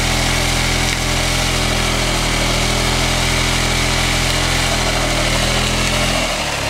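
Suzuki Burgman 400 scooter's single-cylinder engine running at a steady pitch while its rear tyre spins in place in a smoky burnout. The engine note drops near the end.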